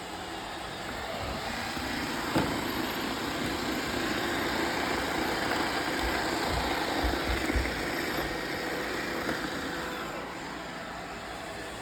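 Roomba robot vacuum running, its whirring growing louder as it comes near and fading again near the end, with a knock and a few low thuds as it bumps into things.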